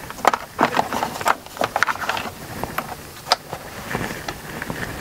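RAM Promaster's hard plastic headliner shelf being worked up into place overhead: irregular clicks, knocks and rustling as the plastic is handled and pushed over the lip of its metal bracket, with a louder click a little past three seconds in.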